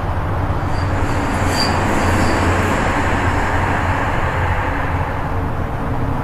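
Simson S51's 50 cc two-stroke single-cylinder engine running steadily while the bike stands.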